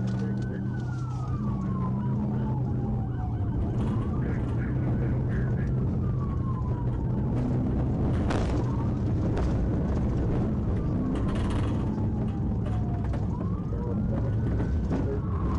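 Police car siren on a slow wail, rising and falling about every four and a half seconds, over the pursuing patrol car's engine and road noise.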